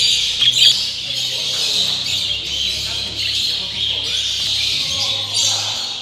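A chorus of many caged birds chirping and chattering at once, with no single call standing out.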